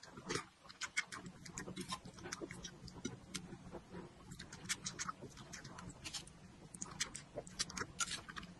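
Close-miked eating of dumplings in spicy soup: wet slurps from a spoon, chewing and lip smacks, a quick, irregular run of small clicks, over a faint low hum.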